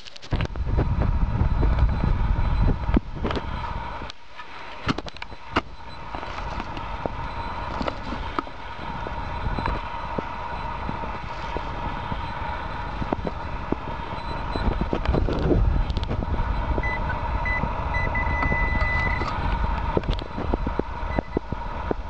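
A spade digging into forest soil and roots, with repeated scraping and knocks and heavy handling rumble. A metal detector's tone runs underneath, and near the end it gives a higher, repeated beeping as it signals a metal target in the hole.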